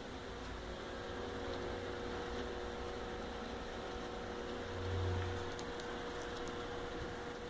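Steady hum and hiss of a small clip-on fan running, with a brief low thump about five seconds in.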